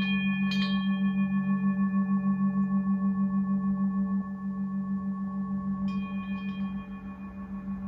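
Singing bowls ringing: a deep, steady hum that pulses several times a second, with a higher, multi-toned ring struck about half a second in and again about six seconds in, each fading slowly.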